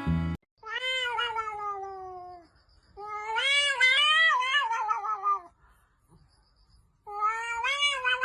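A domestic cat giving three long, drawn-out meows, each wavering up and down in pitch, with short pauses between them.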